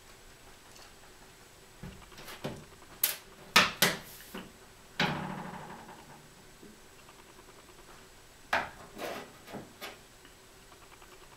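Clicks and knocks of a folding knife's small metal parts and tools being handled while the knife is taken apart. A cluster of sharp clicks comes first, then one heavier clack about five seconds in that rings briefly, then a few more clicks near the end.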